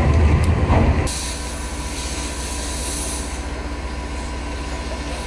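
DB class 362 diesel shunting locomotive's engine rumbling at idle for about a second. It breaks off abruptly into a quieter steady mechanical running sound with a light hiss.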